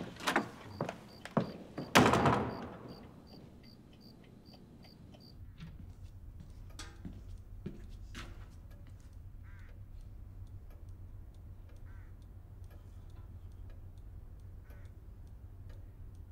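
A few knocks and a heavier thud about two seconds in, then a clock ticking quickly and evenly. The ticking stops after about five seconds and gives way to a low steady hum with scattered light steps.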